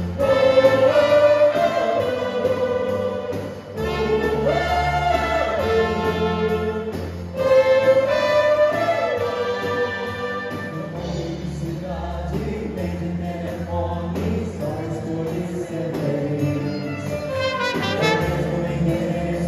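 Live vocal ensemble singing a romantic Brazilian pop ballad in harmony into microphones, backed by cello, violin, keyboard and two trumpets.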